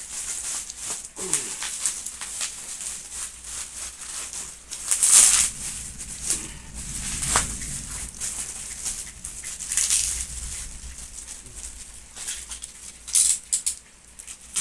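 Bow packaging being handled and opened, rustling and crinkling in irregular bursts, loudest about five, ten and thirteen seconds in.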